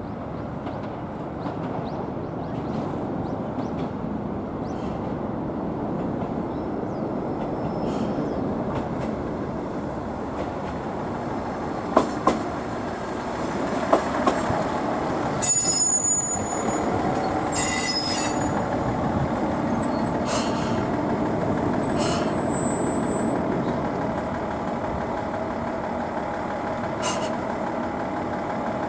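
Diesel railcar running along the track with a steady rumble, a few sharp clicks from the rail joints, then several brief high-pitched wheel squeals in the middle.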